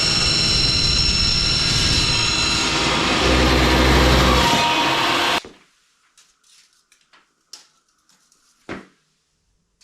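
Power saw cutting steel stock, running loudly and steadily with a high whine, then stopping abruptly about five seconds in. A few faint light clinks follow.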